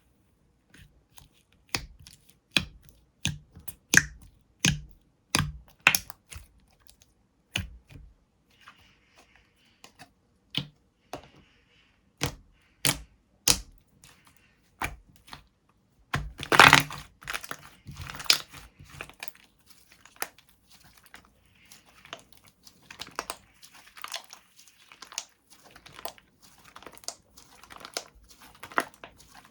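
Slime being pressed and squished by hand, making a run of sharp clicks and pops, about one or two a second, then irregular crackling and crinkling, with the loudest crunch a little past halfway.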